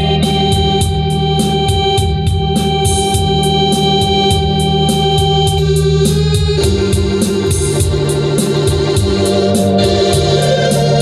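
Organ playing sustained chords over a moving bass line, with a steady high ticking beat of about three a second. The chord changes about six and a half seconds in.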